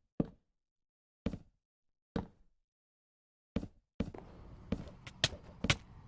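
A series of separate sharp knocks, about eight single strikes a second or less apart, each ringing out briefly; about four seconds in a steady background noise comes in under them.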